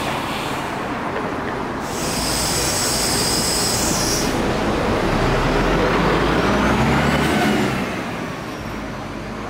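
Daewoo Royal City city bus pulling away from a stop. A hiss of compressed air from its pneumatics lasts about two seconds, then the engine works harder with a rising whine as the bus accelerates. The sound eases off near the end as it moves away.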